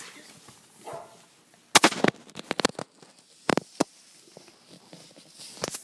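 A series of sharp knocks and clicks from hard objects: a quick cluster about two seconds in, then a few scattered single knocks.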